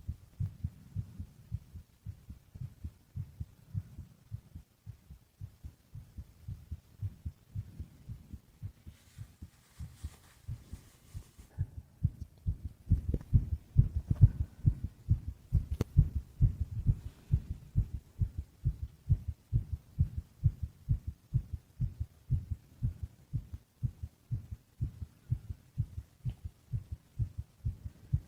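A sleeping man's heartbeat: steady, evenly spaced low thumps, a little over two a second, getting louder about halfway through.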